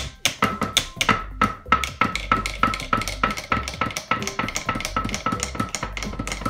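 Wooden bar stool played as a drum, beaten with sticks in a fast, steady rhythm of about five strikes a second, each hit sharp with a short ring at one pitch.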